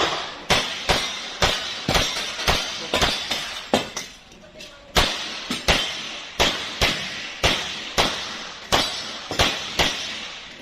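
Glock 22 .40 S&W pistol firing in quick succession: about twenty sharp shots at roughly two a second, each with a short echo, with a brief pause a little before the middle.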